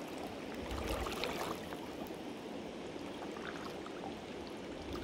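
Shallow mountain river flowing over stones: a steady rush of running water with faint small ticks and trickles in it.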